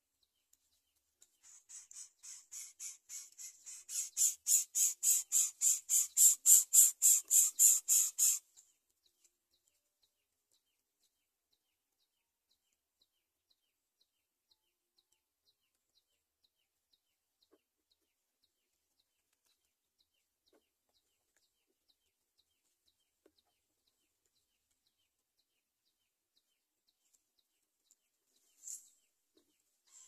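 Greater coucal nestlings giving a rapid run of high-pitched begging chirps, about three a second, growing louder for several seconds and then stopping abruptly. A single short high call comes near the end.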